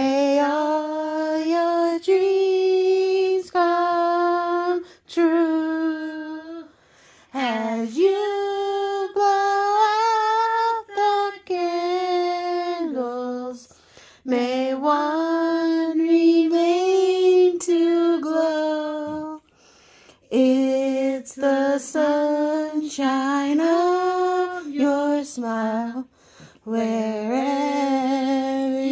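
A small group of family voices, women's leading, singing their own family birthday song, a tune that came from a waltzing song. Held notes step up and down in phrases, with short breaks between phrases.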